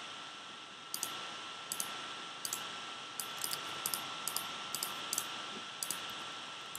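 About a dozen sharp computer mouse and keyboard clicks at irregular intervals, made while editing node values in software, over a steady background hiss with a faint high steady tone.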